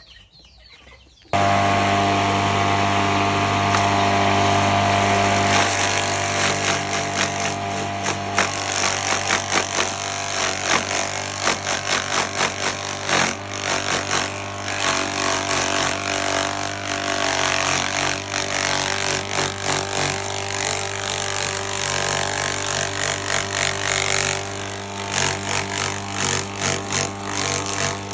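A motor-driven machine starts suddenly about a second in and runs loud and steady with a low hum. About five seconds in it turns rougher and more uneven, with irregular rattling.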